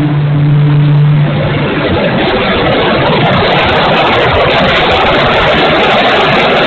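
Electric motor and propeller of an E-flite P-51 Mustang RC model humming at a steady pitch, giving way about two seconds in to a loud, rough rushing noise with crackles.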